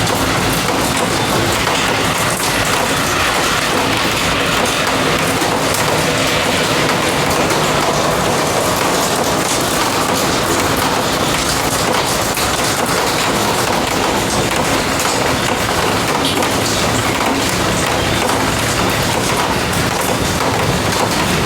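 Steady heavy rain falling, a dense even hiss with a fine crackle of drops.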